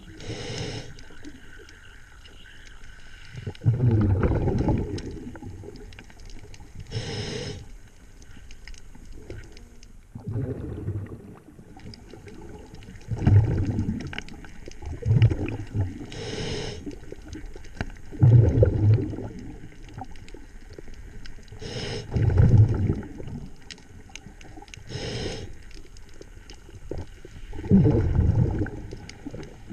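A diver breathing through a regulator underwater: short hissing inhalations alternating with louder bubbling exhalations, one breath every few seconds.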